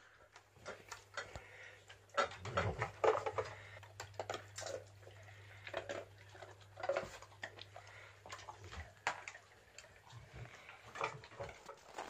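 A pet eating and lapping from a stainless steel bowl: irregular small clicks, taps and wet lapping sounds against the metal. A faint steady low hum lies underneath and stops near the end.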